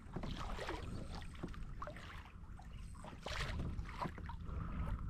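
Water lapping and splashing lightly against a moving Old Town kayak's hull, with a few small knocks and some wind on the microphone.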